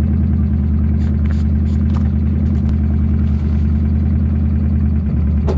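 Small portable tire inflator running with a steady buzzing drone, pumping air into a scooter's flat rear tire to try to seat the tire on its bead.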